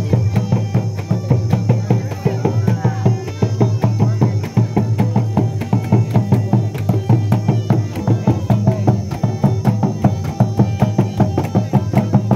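Live Santhali folk dance music: double-headed drums beaten in a fast, dense rhythm, with a flute melody above them.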